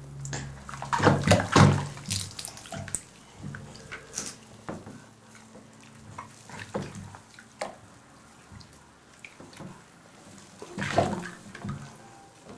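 A baby's hands slapping and patting shallow bathwater in a small plastic tub, in irregular splashes. There is a loud flurry of splashes about a second in and another near the end, with lighter pats and drips between.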